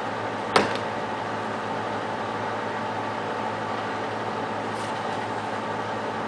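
Steady mechanical hum with hiss, with one sharp click about half a second in.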